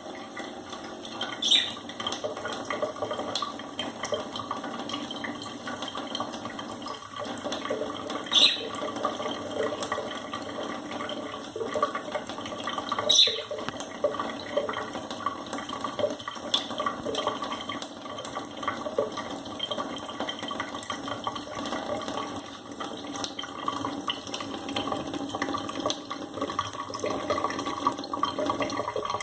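Two budgerigars chirping over a steady sound of running, splashing water. Three loud, sharp chirps stand out, with softer calls between.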